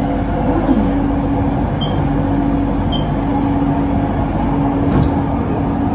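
Electric train running on an elevated track, heard from inside the carriage: a steady motor hum over low rumbling, with two brief high chirps about two and three seconds in.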